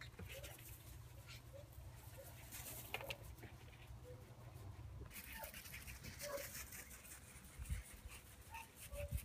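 Puppies giving short, high yips and whimpers scattered throughout, over a faint crunch of small feet running on gravel. Two low thumps near the end.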